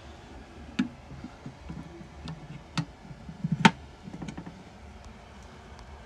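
Rustling and knocking with a few sharp metallic clicks, the loudest about three and a half seconds in: the white metal electrical enclosure's door being shut.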